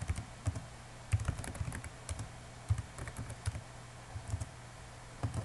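Computer keyboard typing: irregular runs of keystrokes with short pauses between them, over a low steady hum.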